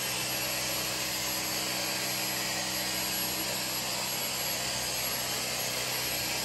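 Upright vacuum cleaner's motor running steadily: an even whoosh of air with a low motor hum and a thin high whine.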